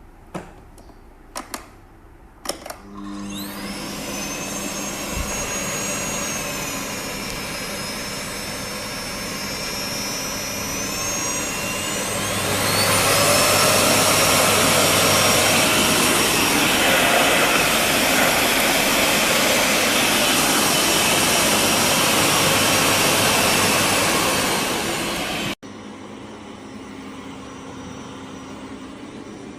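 Sharp 2200W bagless vacuum cleaner (ECC2219N) starting after a few clicks, its motor spinning up with a rising whine and then running steadily. About twelve seconds in it gets louder with a higher whine, and it stops abruptly near the end.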